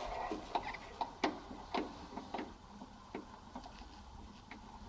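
Faint, irregular clicks and ticks of a metal paintless dent repair tool, a whale tail, knocking and scraping against the sheet-metal brace of a trunk lid as it is worked through an opening to push on a hail dent.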